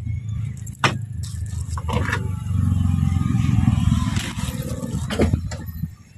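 A low engine rumble, loudest in the middle and dropping away sharply near the end, with a few sharp knocks of a cleaver striking a wooden cutting board.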